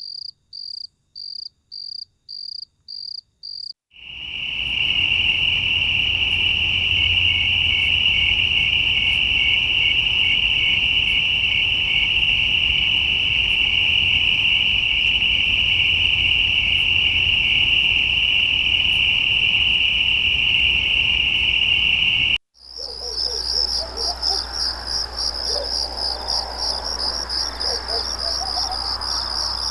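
Crickets chirping in three spliced recordings. First comes a run of evenly spaced high chirps, about two or three a second, with silence between them. About four seconds in it changes to one continuous, steady trill over a low hum, and after an abrupt cut near the end a dense, fast-pulsing higher trill takes over.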